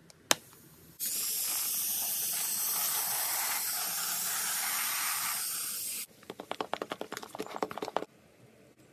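A single sharp click, then a loud steady hiss that lasts about five seconds and cuts off suddenly, followed by about two seconds of quick crackling clicks.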